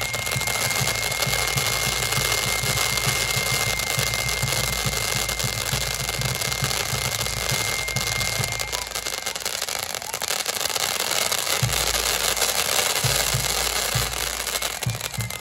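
Fireworks display: a dense, continuous crackling with low rumbling booms, and a steady high thin tone through about the first half.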